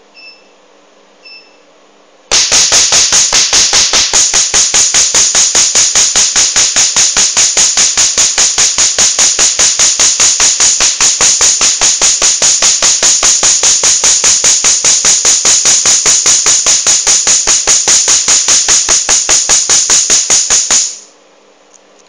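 Tattoo-removal laser firing a fast, even train of sharp snapping pulses, about five a second, for some eighteen seconds, then stopping abruptly. Two short high beeps come just before the firing starts.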